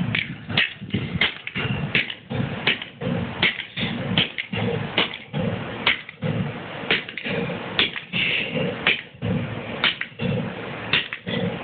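Repeated hard blows smashing a small plastic LCD alarm clock, about two strikes a second at an uneven pace.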